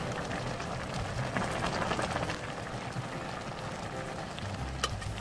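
Broth of a beef and mushroom hot pot bubbling at a steady boil in a stainless steel pan, with a spoon stirring through it. A single sharp tick sounds near the end.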